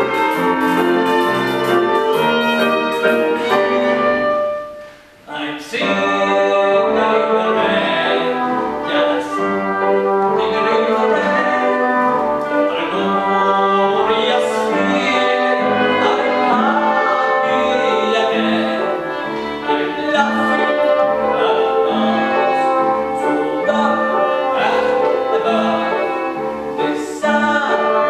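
Live ensemble music; it breaks off briefly about five seconds in, then resumes and plays on.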